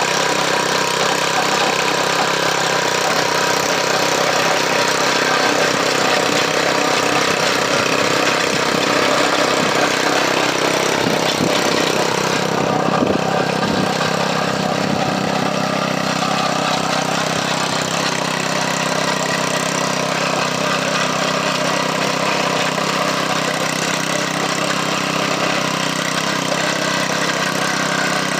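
Garden tiller's small engine running steadily, now that it starts after its carburetor was cleaned. The sound shifts briefly about 12 seconds in, then runs on evenly.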